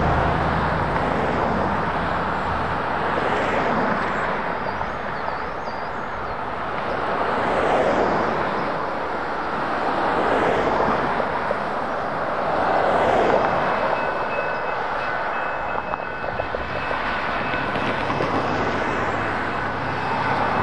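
Cars and trucks passing on the highway, tyre and engine noise swelling and fading as each goes by. About two-thirds of the way through, the railroad crossing's warning bell starts ringing and keeps on, the signals activating for an approaching train.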